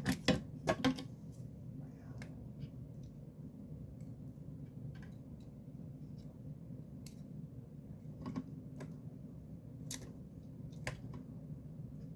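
Light clicks and taps of small parts and a tool being handled on a workbench: three sharp clicks in the first second, then single ticks every second or two, over a steady low hum.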